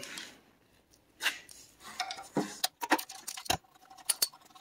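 Scattered light clicks and small metallic taps from hands handling the ignition wires and connectors of a Honda GX160 engine, with one sharper click about three and a half seconds in.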